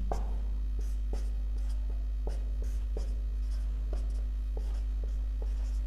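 Marker pen writing on a whiteboard: a string of short, irregular strokes and taps of the tip on the board, over a steady low hum.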